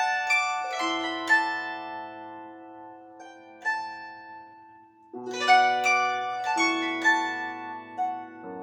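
Solo instrumental music of separate plucked or struck notes left ringing. Several notes sound in the first second or so, then fade into a quiet held stretch that nearly dies away just before the middle; a new phrase of notes begins a little past the middle.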